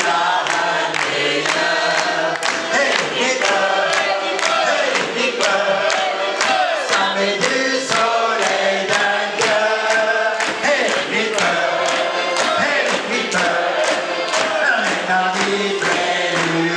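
A crowd singing together while clapping in time, about two claps a second.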